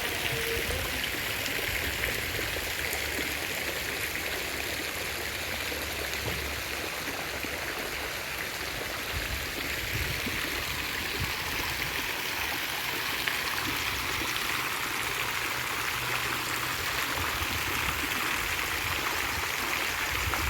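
Steady rushing of running water, an even hiss with a low uneven rumble underneath.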